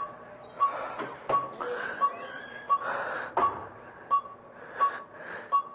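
Hospital heart monitor beeping steadily, a short high beep about every three-quarters of a second, marking a patient's heartbeat. Between the beeps, the laboured, gasping breathing of a dying old man on oxygen.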